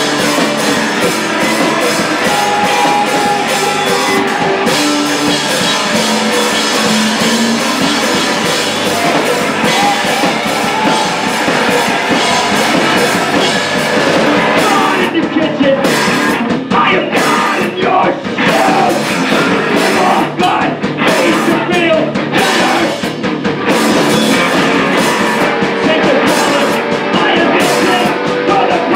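Noise-rock band playing live through amplifiers: two distorted electric guitars, bass guitar and drum kit in a loud, dense wall of sound. About halfway through the band hits in a choppy stop-start rhythm with brief gaps, then returns to the full wash.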